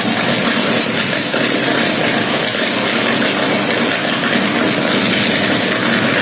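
Pole-mounted electrical transformer arcing as it burns: a loud, steady buzz with noise across the whole range and no pauses.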